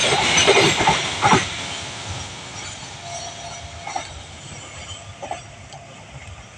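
Freight train's covered wagons rolling past at speed, wheels knocking over the rail joints. The last wagons pass about a second and a half in, and the rumble then fades as the train draws away.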